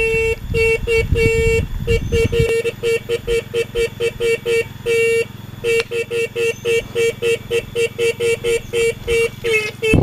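Motorcycle electric horn sounding on a single steady note, first held, then tapped in many short toots at about three to four a second with a few longer blasts between.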